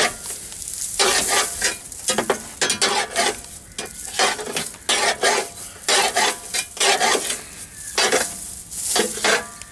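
A metal rod scraping and raking packed straw and dirt out of the stone-trap hatch of a DON-1500B combine harvester, in irregular rustling, scraping strokes about once or twice a second. The trap is clogged with soil and straw.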